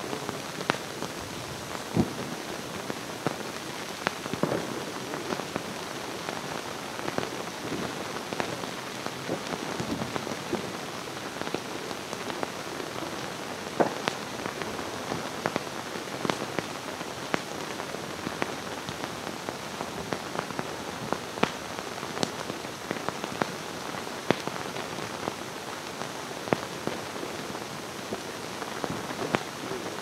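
Pyrotechnic waterfall, two 4.5 m curtains of falling sparks, burning with a steady hiss dotted with sharp, irregular crackles and pops.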